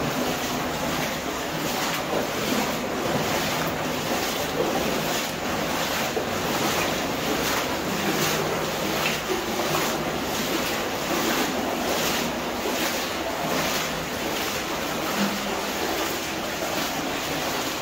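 Wellington-booted footsteps sloshing through shallow water on the floor of a flooded mine level, a steady splash about twice a second.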